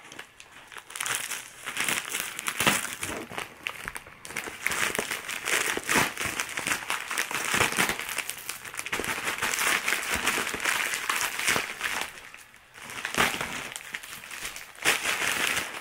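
A plastic poly mailer bag crinkling and rustling as it is cut open with scissors and pulled apart by hand, with a brief lull near the end.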